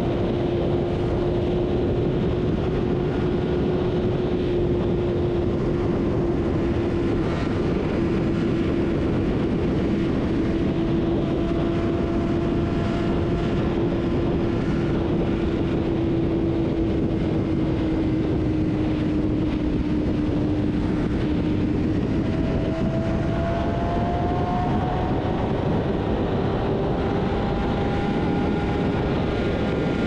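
Inline-four sport motorcycle engine running at a steady cruise under heavy wind rush, one held engine note that sags slightly in pitch and then climbs a little about two-thirds of the way through.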